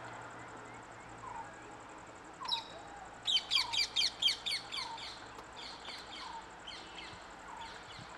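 Wild birds calling: one repeats a short falling note about once a second, while another gives a loud run of rapid high chirps from about two and a half to five seconds in, then fainter chirps.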